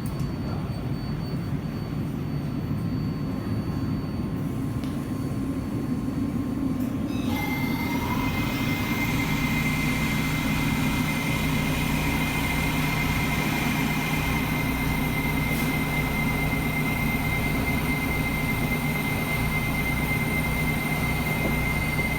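Kawasaki R188 New York subway car running, heard from inside the car: a steady low rumble throughout. About seven seconds in, the noise suddenly grows louder and hissier, and a steady high-pitched whine joins it and holds.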